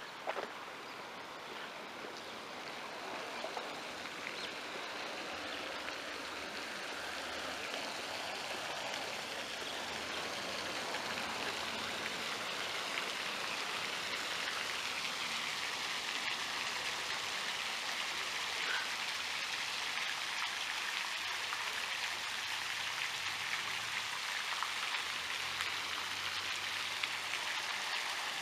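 Fountain jet spraying and splashing into an ornamental pool: a steady rush of falling water that slowly grows louder over the first half.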